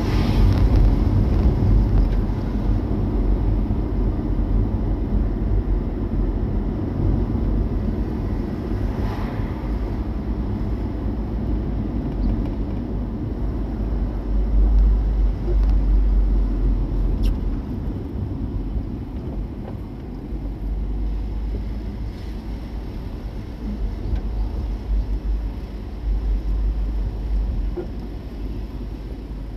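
Steady low rumble of a car being driven, road and engine noise.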